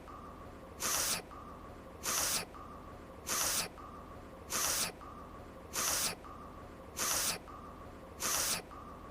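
A woman's short sniffle through the nose, looped so that it repeats at an even pace about every 1.25 seconds: seven sniffs, with a faint steady hum between them.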